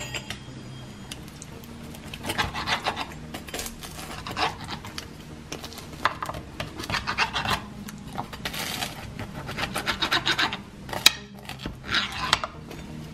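Rotary pizza cutter wheel rolling through a baked pizza's crisp, charred crust and scraping the plate beneath: about six separate rasping strokes, one cut after another.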